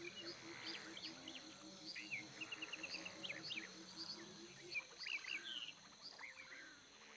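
Faint wild outdoor ambience of small birds chirping in short, quick notes, over a low pulsing sound repeating about five times a second that stops about five seconds in.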